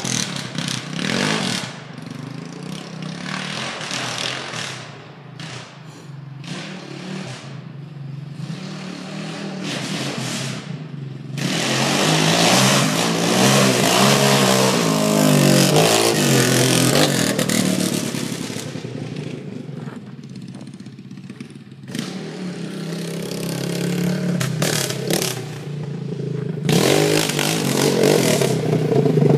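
Yamaha Raptor 700R SE quad's single-cylinder four-stroke engine running through a straight pipe, revving up and backing off again and again as it is ridden. It is loud, swelling in the middle and again near the end as it comes close.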